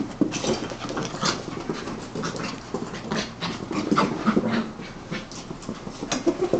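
Two puppies play-fighting: panting with a busy run of short, irregular dog noises and scuffles.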